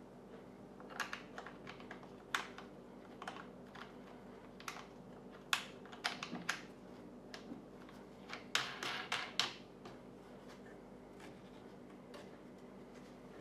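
Light, sharp plastic clicks and taps as hands handle a Kydex cheek rest mounted on a synthetic rifle stock. They come singly at first, then in quick clusters about halfway through and again a little later.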